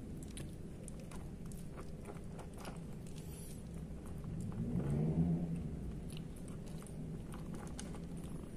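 Kitten crunching dry cat kibble from a bowl: a quick, irregular scatter of small crunches. A low rumble swells and fades about halfway through.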